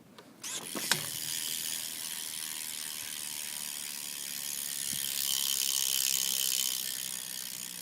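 Shadow Rant V2 rear hub of a BMX bike freewheeling as the back wheel spins, its pawls clicking so fast that they run together into a steady ratcheting buzz. The buzz starts about half a second in with a sharp click, swells past the middle and eases toward the end.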